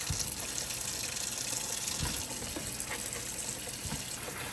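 Kitchen tap running, its water splashing over strawberries as they are rinsed in the sink, a steady hiss with a few soft knocks.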